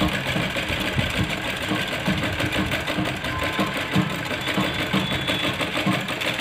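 Sewing machine running steadily, stitching a seam through layered blouse fabric and an embroidered band, its needle beating in a fast, even rhythm.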